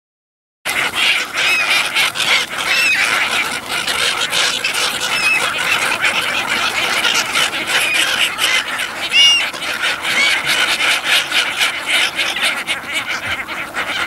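A large flock of gulls calling continuously, many overlapping cries, with short calls that rise and fall in pitch standing out above the rest. The sound starts abruptly about half a second in.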